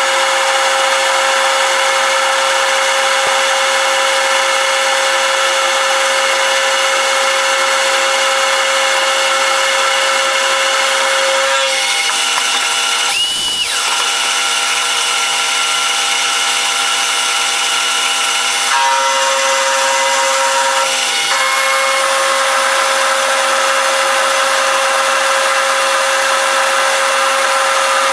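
Power tool running steadily as it machines steel, a continuous drone with a high whine. The sound breaks and shifts briefly about twelve seconds in, and again around twenty seconds in.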